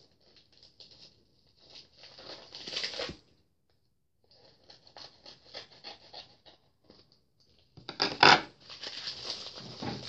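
Plastic mailer envelope rustling, crinkling and tearing as it is handled and ripped open. There is a pause of about a second just after the 3-second mark, and the loudest burst comes about eight seconds in.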